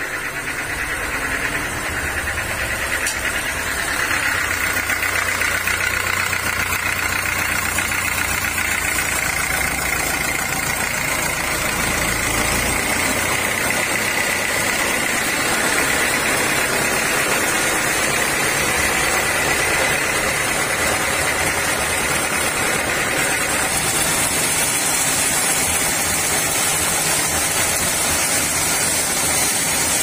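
Band sawmill running steadily: the machine's motor and spinning band blade give a constant whine, with a low rumble underneath that drops away about halfway through.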